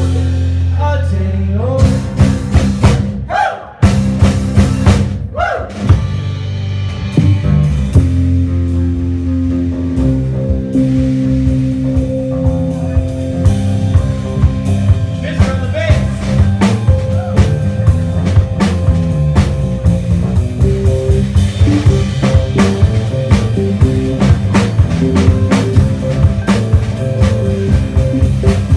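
Live rock band playing, with a drum kit beating fast and steadily over bass and sustained instrument chords. The music drops out briefly about four seconds in, then comes back.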